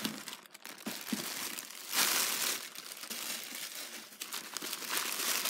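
Crinkling of a polka-dot packaging bag being handled and squeezed in the hands, in irregular rustles with the loudest swells about two seconds in and near the end.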